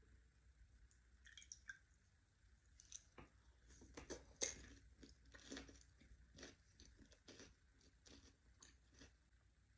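Faint close-up chewing of Ferrero Rocher chocolates: a string of wet, crisp crunches and squishes from about a second in until near the end, loudest about halfway through.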